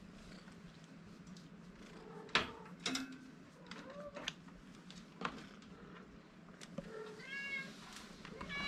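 Kitten mewing: a faint short mew about four seconds in, then two clearer high mews, one about seven seconds in and one near the end. A few light knocks come earlier, as the kitten moves about the cage tray.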